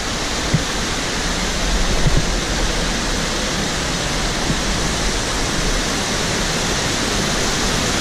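Close-up rush of river water cascading over rock at the top of a waterfall: a loud, steady churning noise. A few soft low thumps come in the first couple of seconds.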